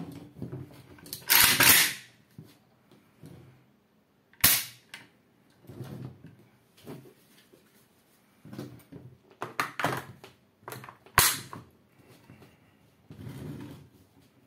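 Sharp metallic clicks and clacks from a Norinco Type 56 AK-47 rifle being handled on a table, a few separate loud ones with quiet gaps between. One of the last sharp clicks comes as a curved magazine is seated and locks into the magazine well.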